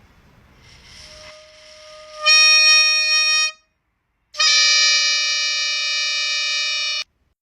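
Two long held notes at the same pitch with a reedy, wind-instrument tone, a pause of about a second between them, each cutting off abruptly.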